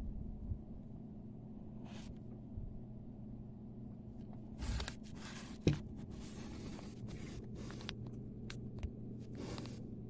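A steady low hum, with bursts of dry rustling as straw nesting material is brushed and handled close to the microphone, and one sharp knock a little past halfway.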